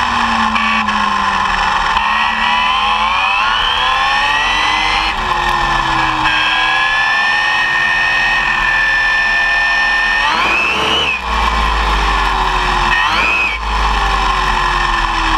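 ARRMA Typhon 6S buggy's brushless electric motor and drivetrain whining at speed on asphalt. The pitch climbs under acceleration, holds steady, then twice dips and rises again as the throttle is let off and reapplied. Underneath is a low rumble of tyre and wind noise that gets heavier about two-thirds of the way through.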